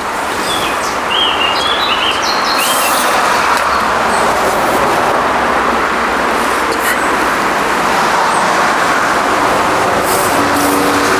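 A vehicle approaching: a steady rushing of road and engine noise that slowly builds. Birds chirp a few times in the first three seconds.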